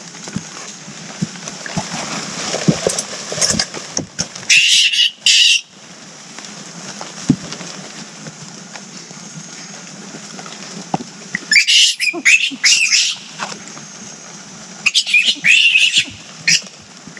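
Agile mangabeys giving loud, high-pitched calls in three bouts, about four and a half, twelve and fifteen seconds in, over a steady high background hiss. Scattered rustling and knocks in the first few seconds.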